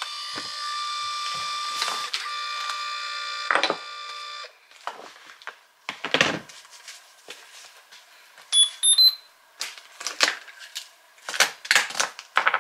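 A held, chime-like electronic tone with several steady pitches, stepping to a new chord twice, for about four and a half seconds. Then objects are handled and set down on a desk in scattered clicks and knocks, with a quick three-note rising electronic beep partway through.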